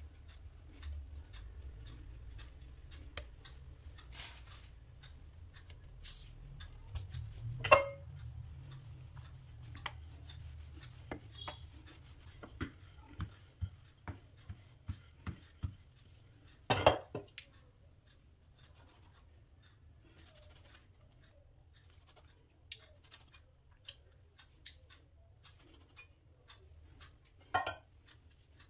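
Pizza dough being rolled out and handled on a kitchen counter: a low rubbing rumble in the first half, with scattered light clicks and knocks, two louder knocks, and a run of light taps about one and a half a second in the middle.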